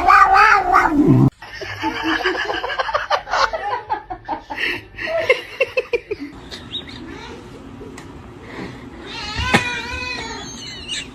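A cat meowing repeatedly, a run of short calls with a longer call near the end.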